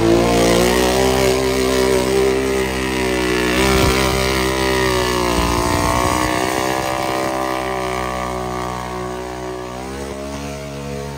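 Mud truck engine revving hard through a mud pit, its pitch rising and falling several times and growing fainter over the last few seconds.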